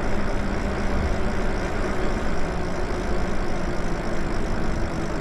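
Electric bike riding along a paved street: wind rushing on the camera microphone and tyre rumble on the asphalt, with a faint steady motor hum that drops slightly in pitch.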